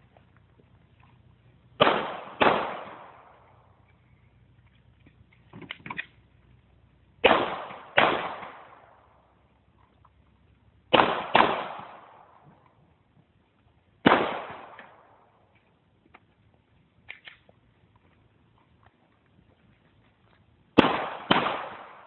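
Glock pistol shots, about nine in all, fired mostly as quick pairs half a second apart with a few seconds between pairs; each shot rings out in a decaying echo.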